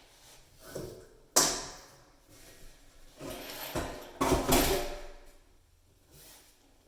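Faucet hardware being handled: a sharp knock about a second and a half in, then a couple of seconds of scraping and rattling of parts.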